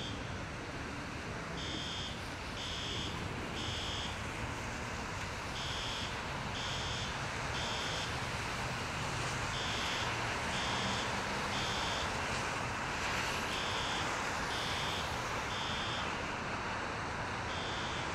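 Electronic alarm beeping in groups of three, about a second apart, with a new group every four seconds: the temporal-three pattern of a fire alarm. Under it runs a steady hiss of wind and traffic.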